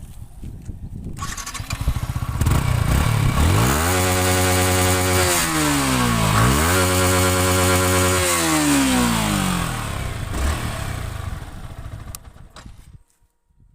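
Yamaha R15 sport bike's single-cylinder engine being revved: from a rough idle it climbs sharply to a high held pitch, dips and climbs again to a second high hold, then falls back to idle and fades out near the end.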